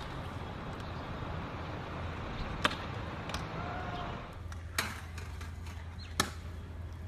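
Stunt scooter rolling on concrete, a steady rumble of the wheels broken by four sharp clacks of the scooter striking the ground.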